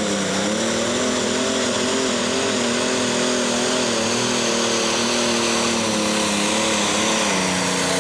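Pro Stock pulling tractor's turbocharged diesel engine running flat out under load as it drags the weight sled, its pitch dipping briefly at the start and then wavering up and down, over a steady hiss.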